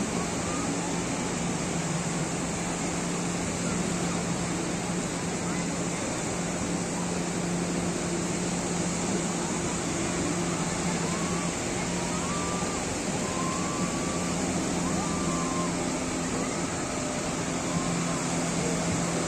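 Surf breaking and washing onto the beach, with the steady low hum of motorboat engines running out on the water.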